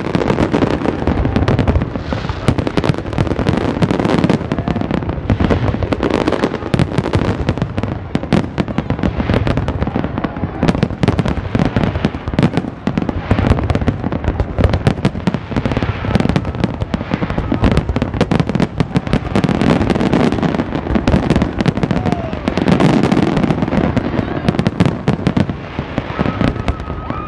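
Aerial fireworks shells going off in a dense, continuous barrage: many rapid, overlapping bangs and crackles with no let-up.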